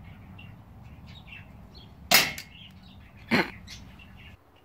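Two shots from a BB pistol, about a second and a quarter apart, each a sharp crack with a brief ring after it.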